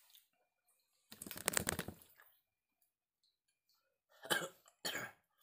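A man coughing from a chest cold: one longer, rough cough about a second in, then two short coughs near the end.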